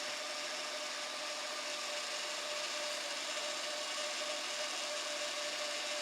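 Honda Odyssey 3.5 L V6 idling steadily: an even hiss with a faint constant whine, running smoothly for now during a hunt for an intermittent misfire.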